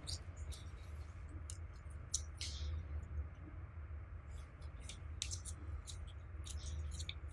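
Slime being kneaded and stretched by hand, giving scattered small sticky clicks and pops over a low steady hum.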